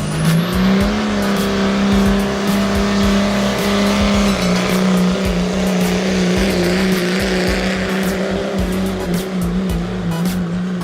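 Diesel pickup truck engine held at high revs, its pitch climbing just after the start and then holding nearly steady, with a slight drop about four seconds in.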